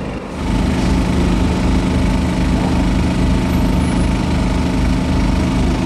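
An engine running steadily close by, with a low, even throb; it starts about half a second in.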